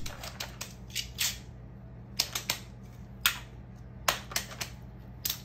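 Light clicks and taps from plastic fidget toys being handled, about a dozen short sharp ones at uneven spacing over a faint steady low hum.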